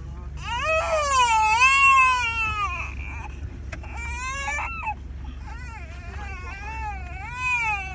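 Infant crying in high-pitched wails: one long cry lasting about two and a half seconds, then a string of shorter cries. A steady low hum of the car runs underneath.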